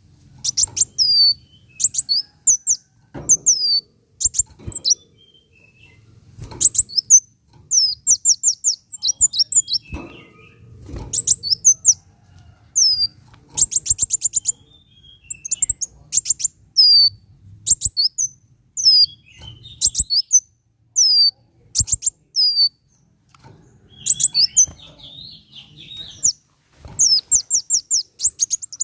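Kolibri wulung sunbird singing: bursts of rapid, high-pitched chirps and short falling notes, repeated every second or two with brief pauses between, over a faint low hum.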